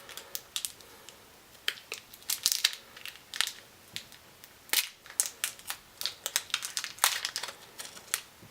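Crinkly wrapper of a milk taffy candy being handled and unwrapped, with many irregular sharp crackles.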